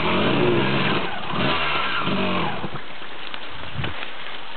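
Enduro dirt bike engine revving in rising and falling bursts, then dropping away a little under three seconds in, leaving a few sharp knocks.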